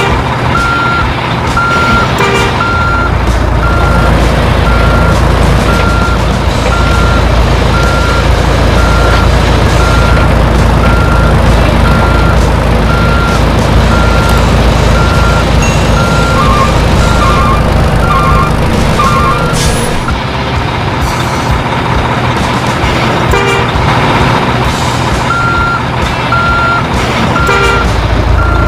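Truck reversing beeper sounding about once a second over a low engine rumble. The rumble drops away about two-thirds of the way through, and the beeping resumes near the end.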